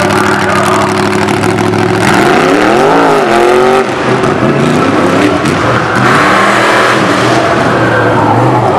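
Engine of a stripped-down pickup race truck running hard on a dirt track. Its pitch sweeps up and back down about two to four seconds in, there is a brief drop in level just before four seconds, and then it keeps running with a changing note.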